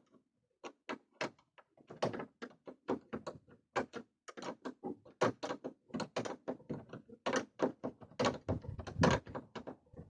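Irregular clicks and knocks of hand tools and metal hardware as a gas strut is screwed onto the sled's lid. They are sparse at first and come several a second from about two seconds in.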